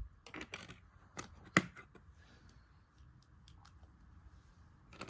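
LEGO plastic pieces clicking and rattling as they are handled and pressed together: a scatter of short, sharp clicks, the loudest about a second and a half in.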